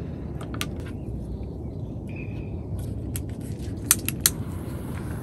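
Sharp metallic clicks and taps while a mosquito coil is set up and lit: a couple about half a second in, then a cluster about three to four seconds in, the loudest near four seconds. Under them runs a steady low rumble.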